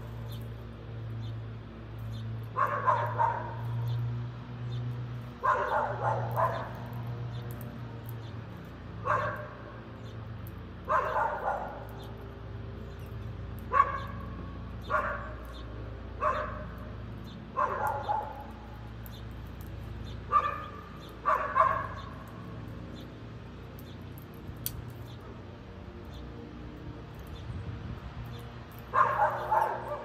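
A dog barking: about a dozen single or paired barks every second or two, then a pause of several seconds before one more near the end.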